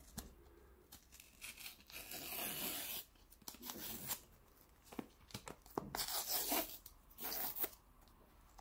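Cardboard tear strip being ripped along the edge of a smartphone's retail box with its pull tab, in several rips, the longest about a second long, with small clicks and rustles of the box between.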